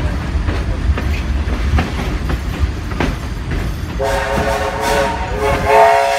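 A moving carriage rumbles along, its wheels clicking over the rail joints. About four seconds in, the steam locomotive's whistle sounds for about two seconds: a chord of several notes that rises slightly in pitch near the end.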